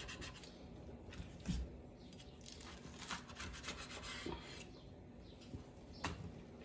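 Faint rubbing and scraping of a knife on a chopping board as a quesadilla is cut into wedges, with a few soft knocks.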